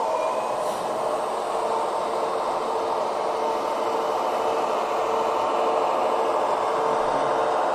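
Model railway locomotives running on the layout: a steady whirring hum of small electric motors.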